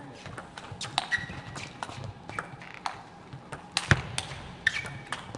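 Table tennis rally: the ball clicking sharply off the rackets and table in a quick, irregular series of hits, with one louder hit about four seconds in.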